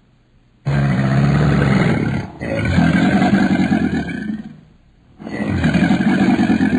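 A large animal roaring in long, deep calls, three of them with short gaps between.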